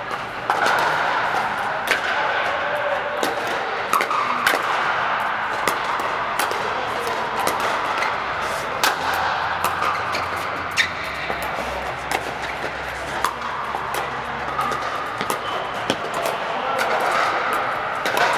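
Pickleball paddles striking plastic balls: irregular sharp pops from several courts at once, over a steady background din.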